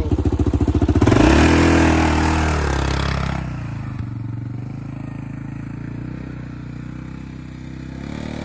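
ATV engine idling close by with a fast throbbing, then about a second in revving hard and pulling away with a burst of hiss from the tyres churning wet mud. The engine note then drops and fades to a steady, fainter drone as the quad drives off.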